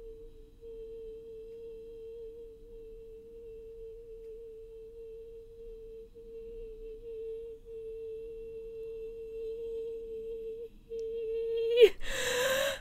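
A woman's voice holding the drawn-out 'yee boi' on one steady note, a long endurance hold that breaks briefly a little before 11 seconds in. About 12 seconds in the note wobbles and falls away as she runs out of breath, and she takes a loud breath in.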